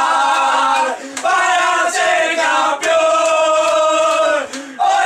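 A small group of men singing a football chant loudly together, in unison with long held notes. The singing breaks off briefly about a second in and again near the end.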